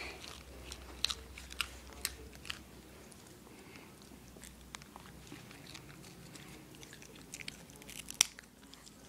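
Small dog chewing a treat: faint scattered crunches and clicks, with a louder crunch about eight seconds in.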